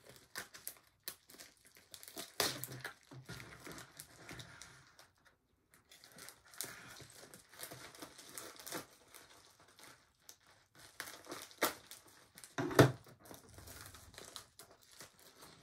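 Plastic poly mailer and its packaging crinkling and tearing as it is cut open with a knife and unpacked by hand: irregular rustling with a few sharper crackles, the loudest about three-quarters of the way through.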